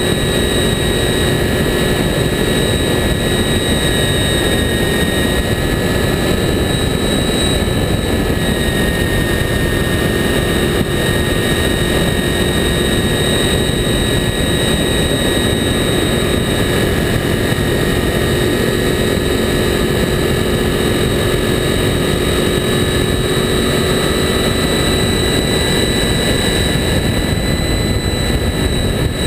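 Honda VFR800's V4 engine running at a steady high-speed cruise, its pitch nearly unchanging, under heavy wind rush and road noise on a camera mounted low by the front wheel.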